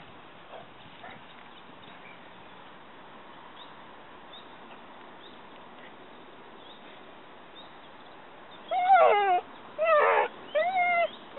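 Gordon setter whining: after a long quiet stretch, a run of loud, high whines near the end, several of them falling in pitch.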